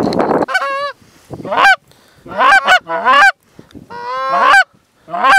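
Canada goose honks and clucks blown on a hunter's goose call, loud and close, in a string of sharp calls that break up in pitch, coming in quick groups of two or three with short gaps: calling to an approaching flock to bring it into the decoys.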